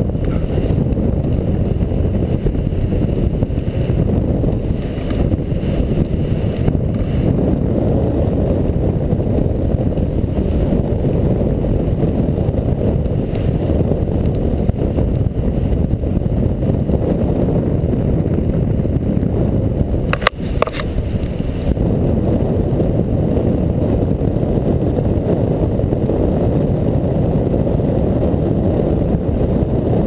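Airflow buffeting a camera microphone during a paraglider flight, a steady loud rumble. Two quick clicks about twenty seconds in.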